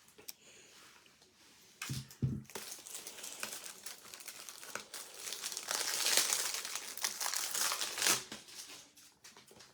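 Packaging crinkling and rustling as it is handled, with two soft knocks about two seconds in; the crinkling grows loudest around the middle and dies down near the end.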